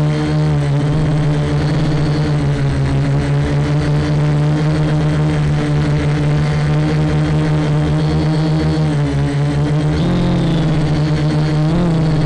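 Quadcopter motors and propellers humming steadily in flight, the pitch shifting briefly with throttle changes about ten seconds in and again near the end.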